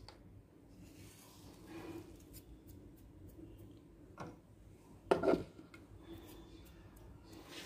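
Faint, scattered handling sounds of kitchen dishes and utensils, small clinks and rubbing, with one brief louder sound about five seconds in.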